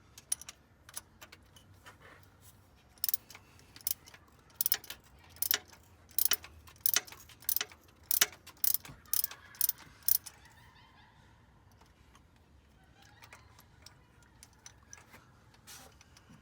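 Ratchet wrench clicking in short bursts, about two a second, as it works a spark plug socket on an extension to loosen a spark plug. The clicking stops about ten seconds in, leaving only faint handling sounds.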